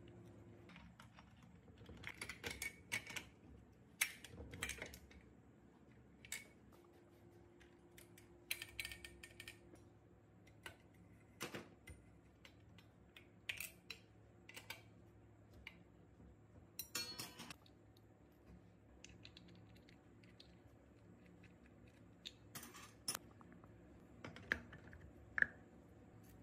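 Faint, scattered clicks and taps with a few short clatters: small metal parts and hand tools being handled and set down, as in hand work on a small motorcycle engine.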